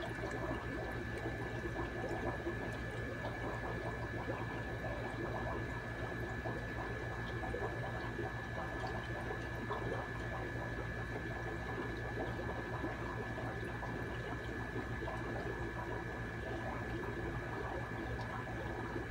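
Aquarium filter running: a steady trickle of moving water with a constant low hum and a faint high whine.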